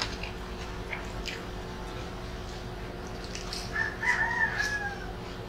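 Small clicks and smacks of food being handled and eaten by hand. About four seconds in, one drawn-out pitched call rises above them for about a second and drops a little at the end.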